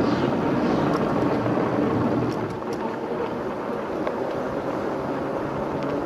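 Steady rush of wind and tyre noise from a moving e-bike, rolling over a wooden bridge deck, with a few light clicks. It eases a little after about two seconds.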